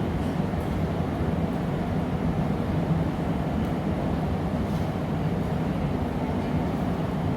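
Steady roar of a glassblowing studio's gas-fired furnace and glory hole, with a few faint light clicks over it.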